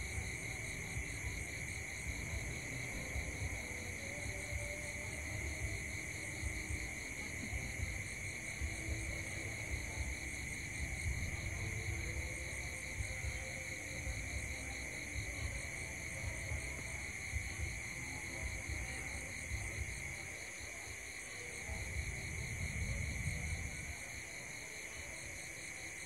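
Night-time insect chorus: steady high-pitched trilling with a fast pulsing shimmer above it, over a low, uneven rumble that swells briefly near the end.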